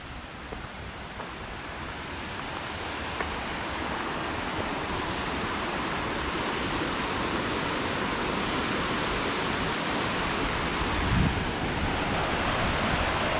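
Rushing of a creek waterfall: a steady noise that grows gradually louder as it is approached.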